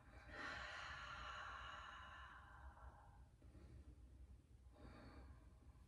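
A faint, slow breath out lasting about three seconds, followed by a short, fainter breath near the end. Otherwise near silence.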